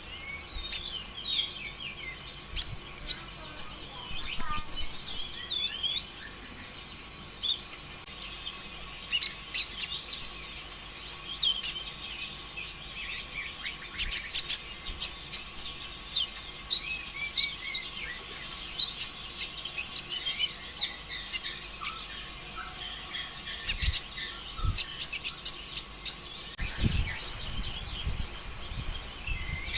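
A konin sunbird sings a long, busy run of high, quick chirps and trills, with a louder flurry about four seconds in. This continuous, rapid song is valued as a lure to set other konin singing. A brief low rumble comes near the end.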